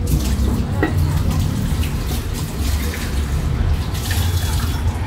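Running water, starting suddenly and stopping near the end, over a steady low rumble.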